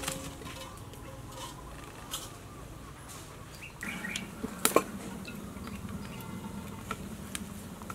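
Cooking oil poured in a thin stream into an aluminium pot, with a couple of sharp metal clinks against the pot a little before halfway. Birds chirp faintly throughout.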